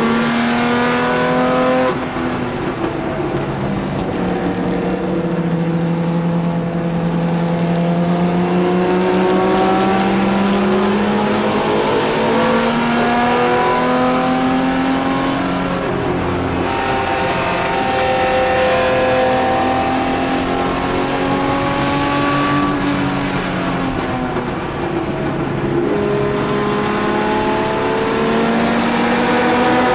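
In-car sound of a 1963 Jaguar XK-E race car's straight-six engine running hard at racing speed, heard from inside the cockpit. The engine note rises under acceleration and drops through gear changes and braking, over and over.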